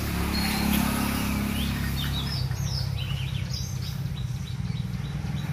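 Small birds chirping again and again over a steady low hum.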